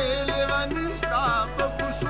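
Live folk music: a drum beating at about three strokes a second under sustained, changing melodic notes, with a wavering, vibrato-like line about a second in.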